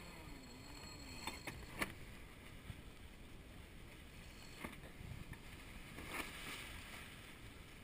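Faint steady wind and water hiss aboard a sailing yacht under spinnaker, broken by a few sharp clicks, the loudest about two seconds in.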